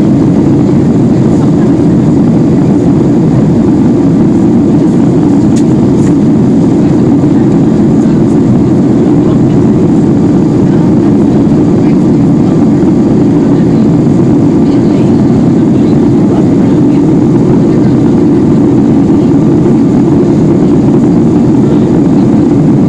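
Boeing 757-200's twin jet engines running at departure power, heard as a loud, steady rush that does not change.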